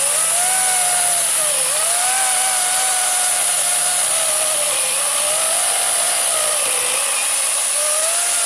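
EGO CS1800E 56V brushless battery chainsaw cutting through a log: a steady electric motor whine over a constant high hiss, the pitch dipping a few times as the chain bites under load.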